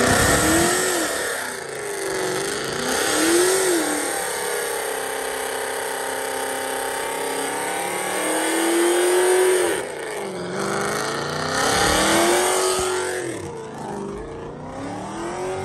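Dodge Challenger doing a burnout: the engine is revved up and down again and again, held high for a couple of seconds near the middle, over the hiss of the spinning rear tyres.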